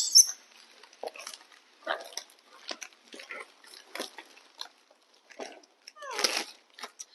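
A pet eating snack treats: irregular short crunches and rustles, with a brief louder animal grunt about six seconds in.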